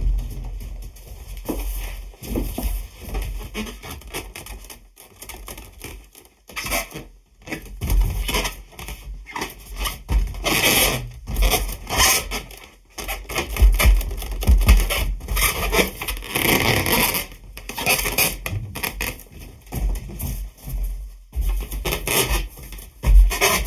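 Air-filled sheet-latex balloon rubbed and squeezed by hand, giving irregular squeaks and rubbing noises in uneven bursts with short pauses.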